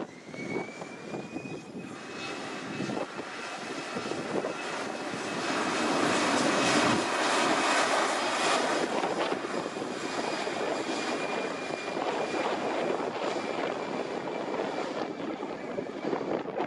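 Airbus A320's CFM56 jet engines at take-off thrust: a high engine whine that rises slightly at the start and then holds, under a roar that builds to its loudest about seven seconds in and then eases off as the jet goes by.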